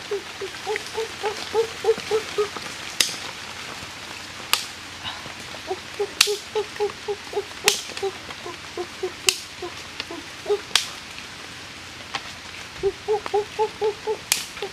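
Sharp single cracks, about one every second and a half, from strikes on wood. Under them a repeated pulsing animal call comes in bouts of several seconds, about four pulses a second.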